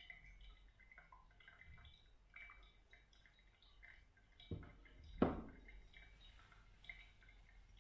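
Faint, irregular dripping of coffee through a paper filter in a pour-over dripper into the carafe below. About four and a half seconds in come two knocks, the second louder, as the gooseneck kettle is set down on the wooden surface.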